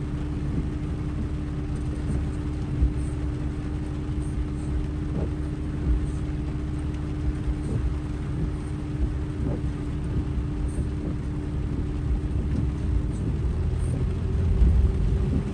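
Inside a pickup truck's cab while driving slowly on a muddy road: steady low engine and road rumble with a steady hum over it. The hum shifts near the end as the rumble grows louder.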